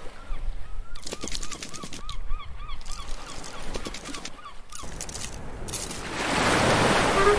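Cartoon sound effects for a scuttling crab: a quick run of short squeaky chirps, about four a second, with scattered clicks. Near the end a rushing splash of water swells up.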